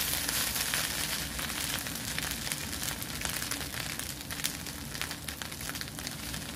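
Fried rice sizzling in a nonstick pan: a steady hiss with fine crackles, with a wooden spatula stirring through the rice during the first few seconds.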